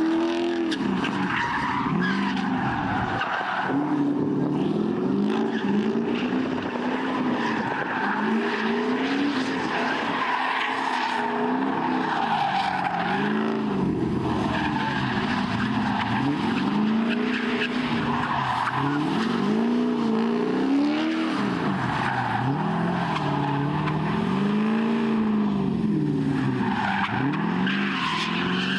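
Drift car engine revving up and falling back over and over as it slides around the track, with tyres squealing and skidding.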